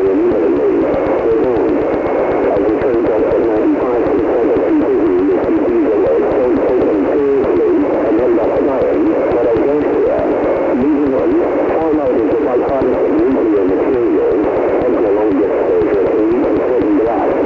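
Thin, radio-like broadcast audio of garbled, warbling voice-like sound, running on without pauses and never forming words.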